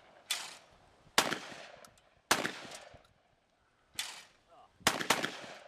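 Shotgun fired about six times at targets, a shot roughly every second, the last two close together, each report ringing off briefly.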